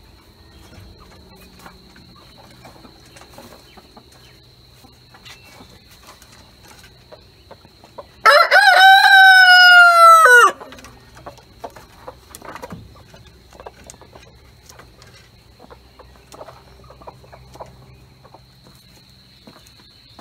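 A rooster crows once, a loud call lasting about two and a half seconds that starts about eight seconds in and drops in pitch at the end. A faint steady high tone runs underneath.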